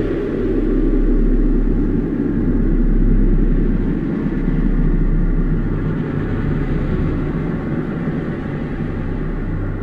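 Steady low-pitched hum from a vibrating plate driven for a cymatics display, with a pulsing undertone and a rattling hiss of sand bouncing on the plate as it settles into a new pattern.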